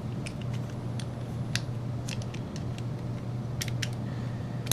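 Small metallic clicks and light scraping, a handful spread out, from the steel slide of a Colt 1908 Vest Pocket pistol being drawn back along its frame rails during reassembly, over a steady low hum.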